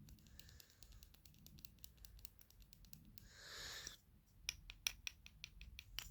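Faint, light tapping of a small wooden puzzle block against a finger ring: a run of small clicks that come faster from about four seconds in, with a brief soft rustle just before.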